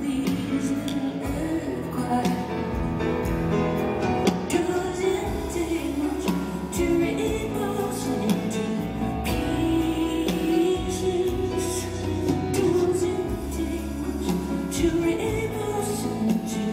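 Live concert music: a Bösendorfer grand piano playing with a woman singing.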